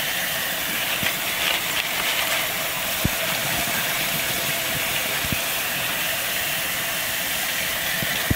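Kitchen tap water pouring steadily into a bowl of brass cartridge cases, rinsing out soapy cleaning solution and spilling over the bowl's rim into a stainless steel sink. A few faint clicks come from the cases.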